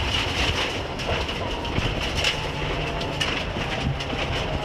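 Mitsubishi Lancer Evo IX rally car running at speed on a gravel stage, heard from inside the cabin: steady engine and road noise with many small clicks and rattles of gravel thrown against the car.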